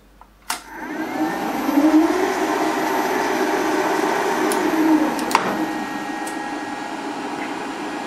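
Workman CQ6125x550 bench lathe on a VFD is switched on with a click about half a second in. Its motor spins up over about a second and a half, then runs with a steady whine of motor and gears. Another click comes about five seconds in, after which the level drops a little.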